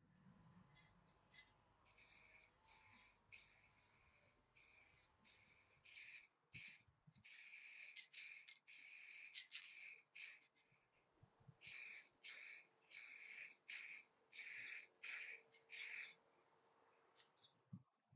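Aerosol spray paint can hissing in many short bursts, each under a second, as the steel frame is sprayed.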